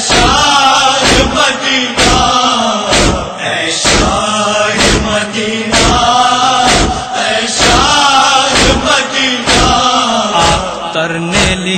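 Group of men chanting a noha lament refrain together, over a steady beat of matam (hands striking chests) about once a second.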